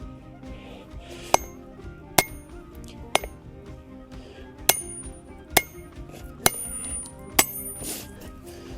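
Hand hammer striking a hot iron axe billet on the anvil, seven blows about a second apart, each with a short metallic ring. Background music plays steadily underneath.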